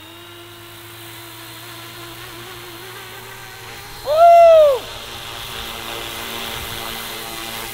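Fly Wing FW200 electric RC helicopter spooling up: a steady motor and rotor hum that grows louder as it lifts off into a low hover. About four seconds in, a loud short tone rises and then falls, lasting under a second.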